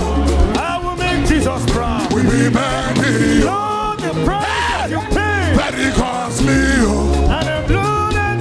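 Live Afro gospel band music with a heavy, pulsing bass beat and a pitched melody line over it.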